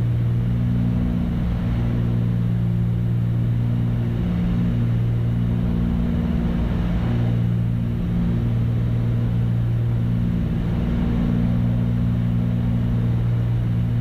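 Cabin drone of a twin-engine Cessna 310's piston engines and propellers, running steadily at reduced power on final approach.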